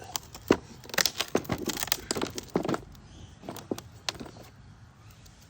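Hard pieces being knocked and clinking together as an object is taken apart by hand: a rapid run of sharp clicks and knocks, then a few scattered taps, dying away after about four seconds.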